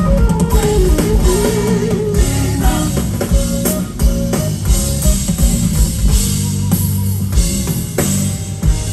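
Live band playing an instrumental passage: guitar melody over bass and a drum kit, with no singing.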